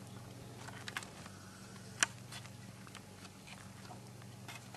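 Cat licking and chewing dried catnip off a tile floor: faint scattered mouth clicks, the sharpest about two seconds in, over a low steady purr.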